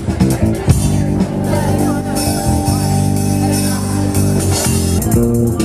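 Live improvised instrumental jam. Electric basses hold long low notes over drums and cymbals played on a Roland V-Drums electronic kit, with a wash of cymbal in the middle.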